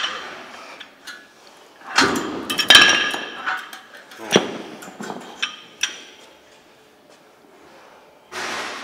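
Metal dumbbells clanking against a dumbbell rack: a run of ringing metallic knocks, loudest about two to three seconds in, then a few lighter clinks.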